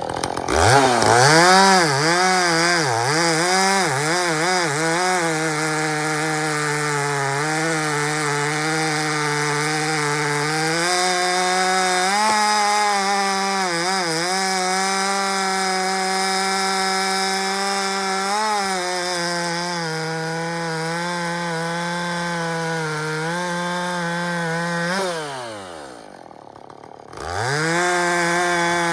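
Husqvarna 450 two-stroke chainsaw revving up and cutting through oak at full throttle, its pitch sagging now and then as the chain bogs under load. About 25 seconds in it drops back to idle, then revs up again near the end.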